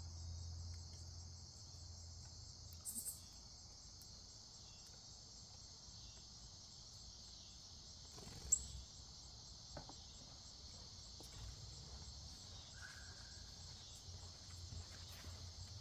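Steady chorus of chirping insects, a continuous high-pitched trill. A single sharp click comes a little past halfway, and a short chirp near the end.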